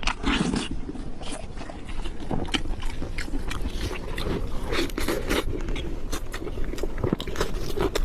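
Close-miked eating: crunchy bites and chewing, with many irregular sharp crackles and clicks.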